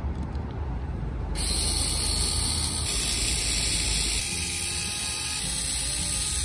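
A steady hiss of spray, such as a pressurised jet of air or liquid, starts suddenly about a second and a half in and holds steady.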